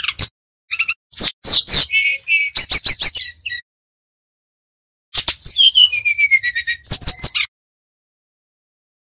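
Brown-chested jungle flycatcher singing its whistling song: a burst of quick sharp chips and whistles, a pause of about a second and a half, then a second burst with a long whistle falling in pitch.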